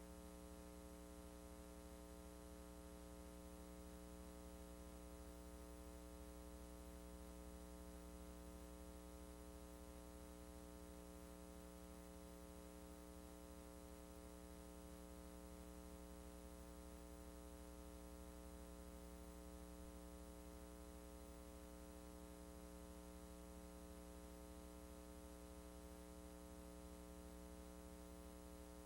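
Near silence: a faint, steady electrical mains hum with its overtones, from a VHS transfer that carries no recorded audio.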